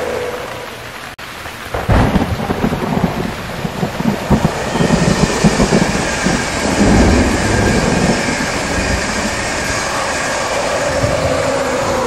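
Thunder: a sudden, crackling clap about two seconds in that rolls on as a rumble for several seconds, over steady rain.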